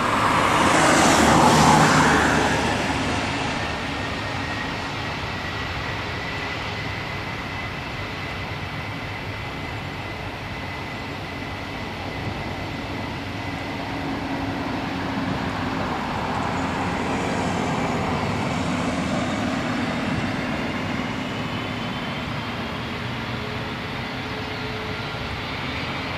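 Jet airliner engines at a runway. The noise swells loudly in the first couple of seconds, then settles into a steady rumble with a thin high whine. It builds again somewhat past the middle.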